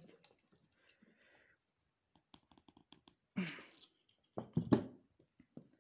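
Small clicks and rustles of thick nylon fishing line and metal pliers being handled as a hook knot is pulled tight, with a louder rustle about three and a half seconds in and two sharper knocks about a second later.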